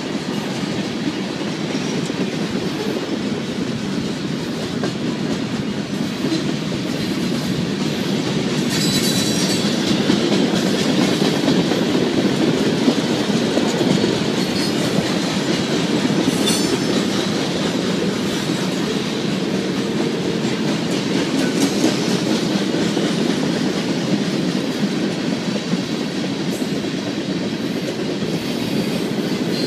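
Union Pacific freight train's cars, tank cars and centerbeam flatcars, rolling past with a steady rumble and clickety-clack of wheels over the rail joints. A few brief high-pitched wheel squeals break through, about a third of the way in, past the middle and later on.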